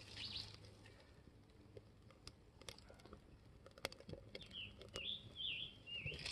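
Leaves burning in a bee smoker, crackling faintly with scattered sharp pops as the fire builds. About four seconds in, a bird sings a short run of rising-and-falling chirps for a second or two.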